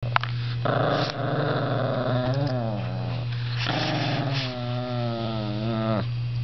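Miniature pinscher growling while guarding her jacket from another dog: rough, throaty snarling alternating with long, drawn-out pitched growls that bend and fall. A steady low hum runs underneath.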